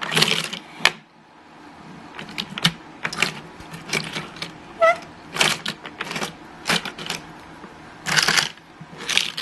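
Small plastic toy trains and track pieces being handled: irregular clicks and clatters of hard plastic, with a longer rattle near the start and another near the end.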